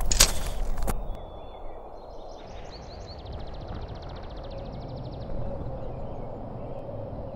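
Footsteps crunching on forest ground for about a second, then quiet woodland ambience with a bird singing: a thin whistled note, a few high chirps and a fast, even trill.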